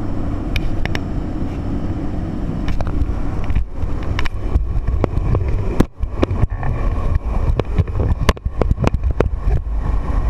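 Jump plane's engine and propeller drone heard from inside the cabin, with knocks and rustles of jumpers' gear and helmets as they shuffle toward the door.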